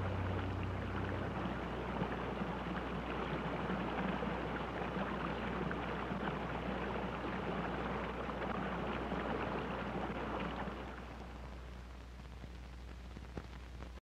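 Running water of a stream, a steady babbling rush that drops away about eleven seconds in. The last note of the score dies out in the first second, over a low steady hum.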